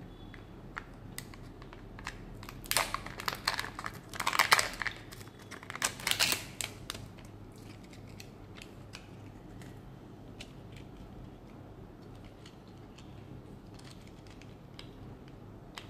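Wrapping of a Kinder Joy egg crinkling in bursts for a few seconds as hands open it. It is followed by faint scattered clicks of small plastic toy parts being handled.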